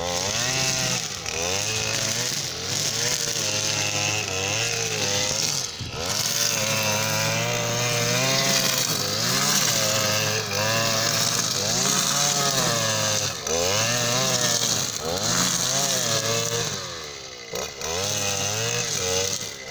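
Petrol brush cutter with a nylon line head, its engine revving up and falling back over and over, roughly every second or two, as it cuts through tall grass.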